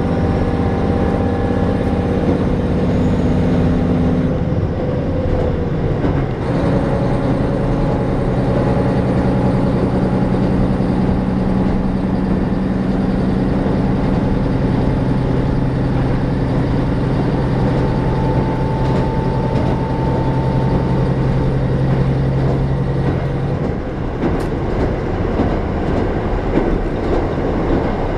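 Diesel railcar running along the rails, heard from inside the car, with wheels clicking over rail joints. The engine note shifts pitch about five seconds in, holds steady, then fades out near the end, leaving the rumble of the wheels.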